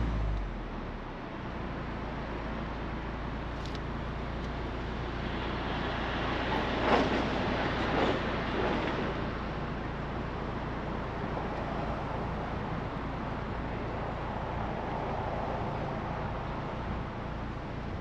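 BMW Z4 sDrive30i driving at a steady pace: the low, even hum of its turbocharged 2.0-litre four-cylinder under tyre and wind noise. About seven seconds in the noise swells briefly, with two knocks about a second apart.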